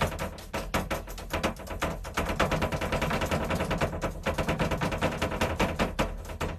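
A fast rattle of sharp cracks, several a second, like automatic gunfire, over a steady low drone.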